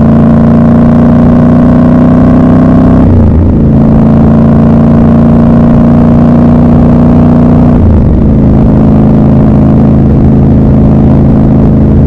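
Triumph Scrambler 1200 XC's 1200 cc parallel-twin engine running loud and close under way, its note climbing slowly. It breaks briefly twice, about three and a half and eight seconds in, as gears are changed, and the note settles lower after the second change.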